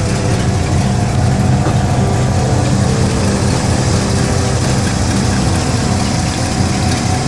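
1953 Studebaker Commander's V8 engine idling steadily with a low, even rumble.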